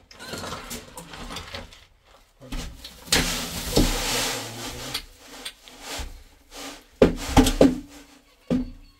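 Wheelbarrow of wet cement mix being tipped out: a loud rushing slide of the mix pouring from the tray, then several sharp knocks of the barrow, three in quick succession and one more just before the end.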